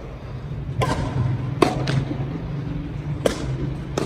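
Badminton rackets striking a shuttlecock in a warm-up rally: several sharp hits, one every second or so, over a faint low hum.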